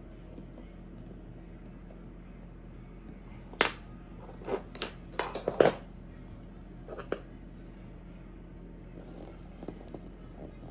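A handful of sharp knocks and clicks in quick succession, about a third of the way in, with one more pair a little later, over a steady low hum.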